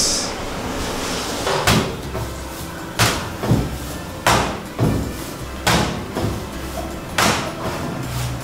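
Martabak telur dough being flung and slapped down on an oiled work table to stretch it thin, a series of sharp slaps starting nearly two seconds in, roughly one every second or so.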